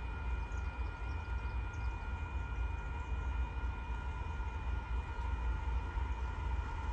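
Steady low rumble of a distant freight train approaching, led by a Union Pacific locomotive, with several steady high tones held throughout.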